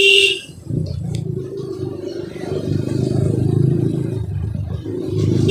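Motorcycle engine and road noise heard from the rider's seat, pulling away and building in loudness over the first few seconds. A vehicle horn sounds at the very start and again near the end.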